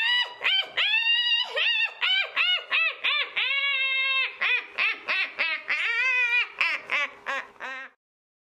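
High-pitched cackling laugh of a witch. A rapid string of short, rising-and-falling notes, some drawn out, that cuts off suddenly near the end.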